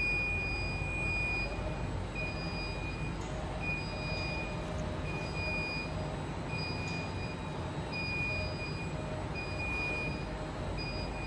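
Warning beeper on a self-propelled electric mobile truck-loading conveyor, sounding a long beep roughly every second and a half while the machine travels. Beneath it is a steady low rumble from the drive and wheels rolling on concrete.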